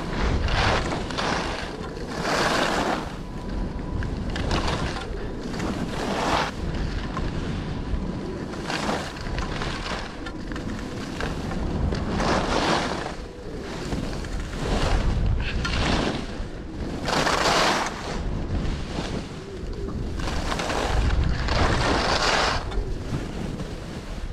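Wind buffeting the microphone in a steady low rumble, with repeated hissing swooshes of edges scraping across snow at each turn, spaced irregularly one to several seconds apart.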